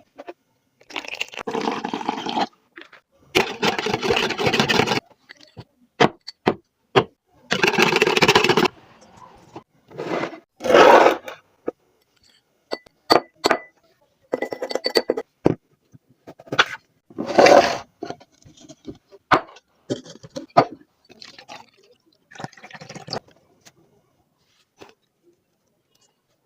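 Kitchen sounds of spiced buttermilk being prepared: several short bursts of splashing liquid, with scrapes, clinks and sharp cracks in between.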